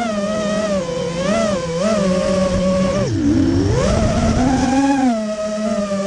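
Radio-controlled model airplane's motor and propeller heard from on board in flight, the pitch rising and falling with the throttle. The pitch drops sharply about three seconds in, climbs back, then levels off near the end.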